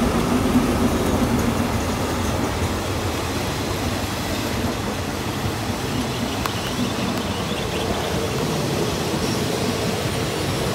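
Alsthom diesel-electric locomotive and its passenger coaches passing close by: the locomotive's engine is heard in the first couple of seconds and fades, then the coaches' wheels rumble steadily along the rails.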